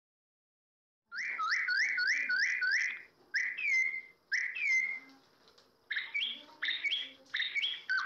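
Small songbird calling: the sound starts suddenly about a second in with a quick run of rising chirps, then two longer notes that fall away, then another cluster of chirps near the end.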